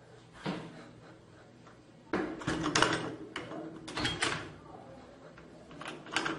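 A series of irregular knocks and bangs indoors, the strongest cluster about two to three seconds in, with a few more scattered later.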